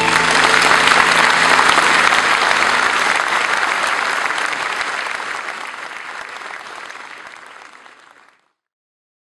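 Concert audience applauding, swelling to its loudest about a second in, then slowly dying away until it cuts off abruptly a little after eight seconds.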